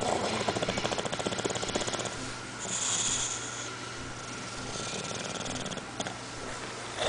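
Sleeping bulldog snoring: a fast, rattling snore for about the first two seconds, then hissing breaths through the nose and throat, twice.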